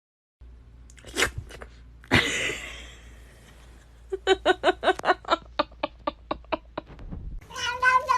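A sharp click and then a loud sudden clatter, followed by a fast run of short pitched yelps, about five a second. Near the end a cat begins a long drawn-out yowl that falls slightly in pitch.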